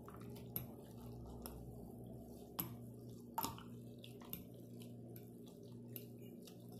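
Light, scattered clinks of a metal spoon and fork against a glass dish, about one a second, as food is lifted out of the broth, over a steady low hum.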